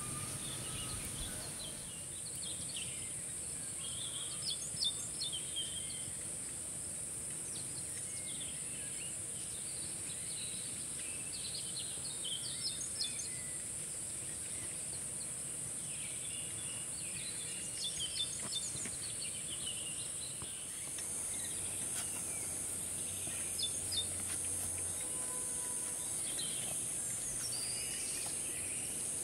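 Forest ambience: a steady high-pitched insect drone, a little louder in the last third, with scattered bird chirps and calls over it.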